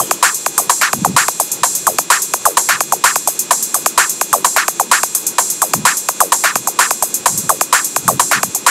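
Background music with a fast electronic drum beat: quick, even, bright ticks about seven a second, with a few low thumps.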